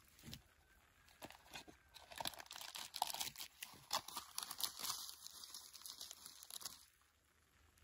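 A packet being handled and torn open: crinkling and tearing with many crisp little clicks, busiest from about two seconds in, stopping about a second before the end.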